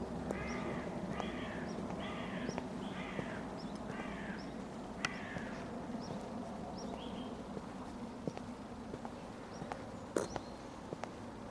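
Church bells dying away: a steady low hum slowly fading, with a few isolated sharp strikes, the clearest about ten seconds in, leaving a short ring. A bird calls in a quick run of harsh notes through the first five seconds.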